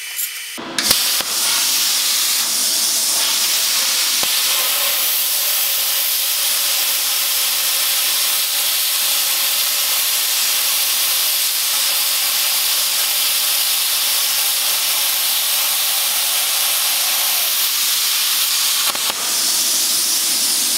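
Plasma cutter torch cutting 3 mm steel plate with its current turned down: a loud, steady hiss of the air and arc starting about a second in. Near the end the cut stops with a brief dip, and the air keeps hissing. The lower setting means slow travel, a rougher, hotter cut and more slag.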